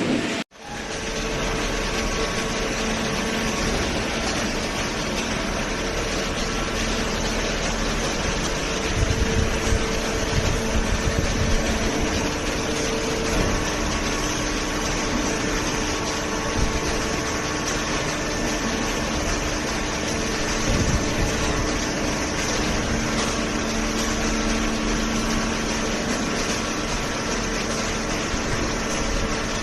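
Hydraulic baler's motor and hydraulic pump running steadily with a continuous hum and hiss. The sound cuts out for a moment about half a second in, and there is heavier low rumbling around nine to twelve seconds in.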